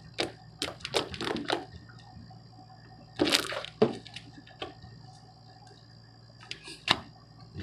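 Sticky, glossy slime being squished and worked in the hands, giving wet clicks and pops: a quick run of clicks at first, a longer, louder squish about three seconds in, and a few single pops near the end.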